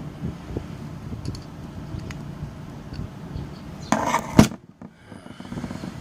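Small metal parts of a vape box mod being handled during disassembly: a few light clicks, then a louder clatter ending in a sharp click about four seconds in, over a steady low background rumble.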